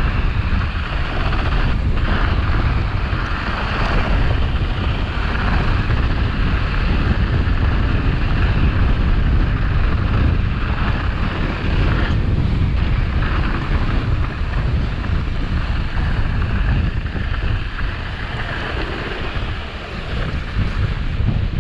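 Heavy wind buffeting on a helmet-mounted GoPro microphone during a fast downhill mountain-bike run, a deep steady rumble, with the rough hiss of 29-inch tyres rolling over loose sandy dirt underneath. It eases a little near the end.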